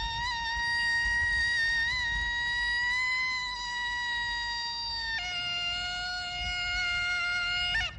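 A Thai ceremonial reed pipe plays procession music, holding one long note with slight wavers and small bends, then stepping down to a lower held note about five seconds in.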